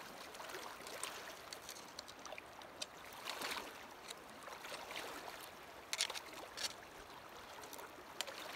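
Shallow river water rushing steadily around a wader's legs, with a few sharp splashes as his feet and trekking poles break the surface, loudest about three and a half and six seconds in.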